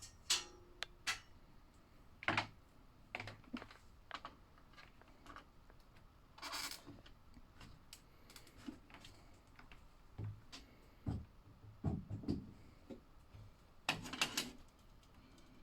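Plastic slot car track pieces being handled and fitted together: scattered, irregular clicks and knocks, with a brief scrape about six and a half seconds in and a quick cluster of clicks near the end.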